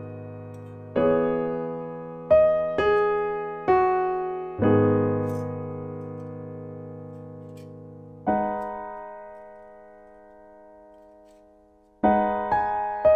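Slow solo piano background music: notes and chords struck one at a time, each left to ring and fade, with a long chord dying away in the second half before a new phrase begins near the end.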